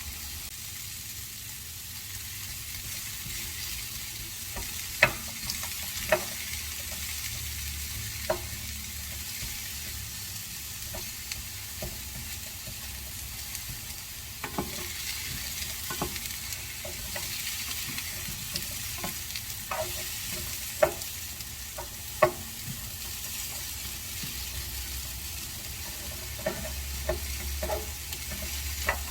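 Vienna sausages and vegetables sizzling in a frying pan, with a steady hiss, while a utensil stirs them and clacks against the pan every second or two, a few strikes sharper than the rest.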